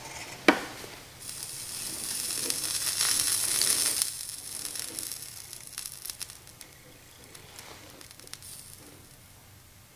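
Soldering iron melting solder into a pin hole of a power cable plug: the solder flux sizzles and hisses, strongest from about one to four seconds in, then fades away. A sharp click about half a second in.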